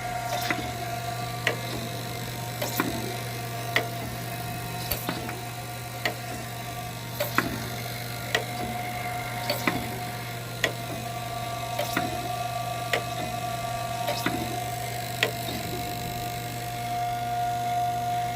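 Gallmeyer & Livingston surface grinder running: a steady motor hum and whine, with a sharp click about once a second.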